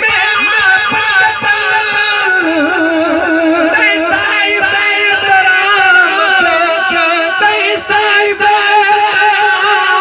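Men singing a Sufi kalam (devotional Urdu song) into microphones over a PA, one long, loud melismatic vocal line with wavering ornamented pitch.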